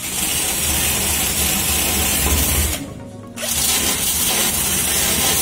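Cordless drill spinning a small cleaning wheel against the truck's sheet-metal body, stripping paint back to bare metal around a hole before welding. It runs steadily, stops briefly about three seconds in, then runs again.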